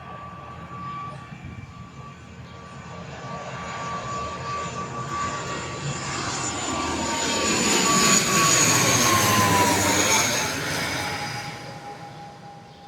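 ATR 72-600 twin-turboprop airliner passing by, its two Pratt & Whitney PW127M engines and propellers growing louder to a peak in the second half. Its whine then drops in pitch as it goes past and fades away.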